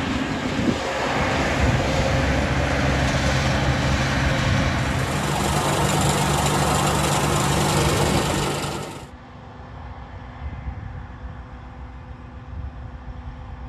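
Vehicle engine running steadily under a loud rush of wind. About nine seconds in it cuts abruptly to a much quieter, steady low engine hum.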